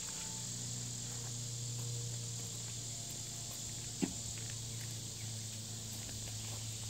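Steady high-pitched insect chorus over a low steady hum, with one short sharp knock about four seconds in.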